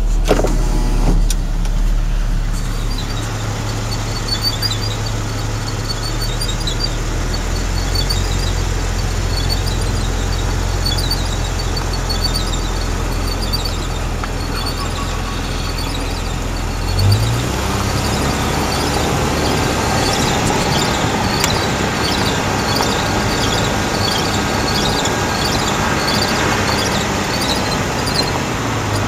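A car running with a short, high-pitched squeak that repeats in a regular rhythm, about one and a half times a second. It is a squeak of unknown origin that the owner is trying to track down.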